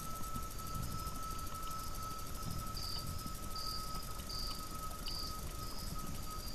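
Night insects, likely crickets, chirping in a regular series of short high chirps about once a second, growing louder about halfway through. Underneath are a steady thin tone and a low hiss.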